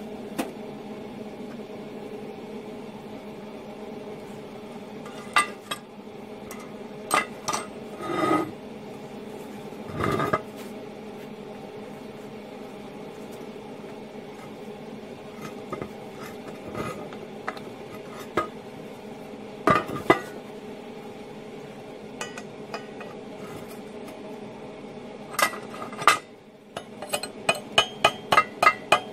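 Scattered metal clanks of steel parts being handled on a steel welding table, then near the end a quick run of chipping-hammer taps knocking slag off a fresh flux-core weld on steel pipe, about five a second. A steady hum runs underneath.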